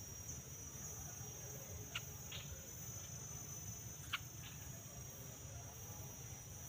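Steady high-pitched insect chorus, typical of crickets, with short sharp chirps about two seconds in and again about four seconds in.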